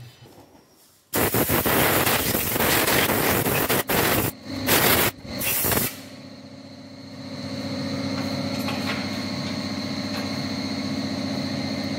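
Several bursts of loud rushing hiss, like air being blown, over about five seconds. Then a machine starts and runs steadily with a constant high whine.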